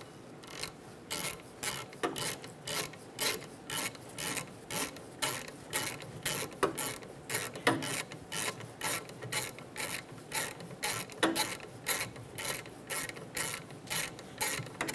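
Hand ratchet with an 11 mm socket clicking in short, even strokes, about three a second, as the brake hose union bolt is backed out of a rear brake caliper.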